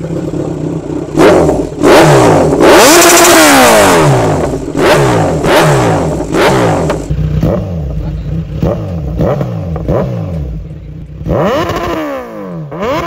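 2024 Kawasaki Z900's 948cc inline-four with an aftermarket full-system exhaust, idling and revved repeatedly in quick throttle blips. The hardest revs come in the first few seconds, then lighter blips over the idle. The custom exhaust is very loud.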